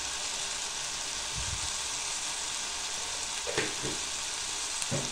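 Chopped sponge gourd cooking in hot oil in an aluminium pot, a steady sizzle with a light tap or two near the end.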